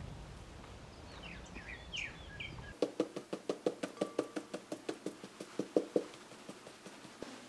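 A few short bird chirps over outdoor background noise. Then, after a sudden change, a knife chops quickly on a cutting board, about four to five sharp knocks a second for a few seconds.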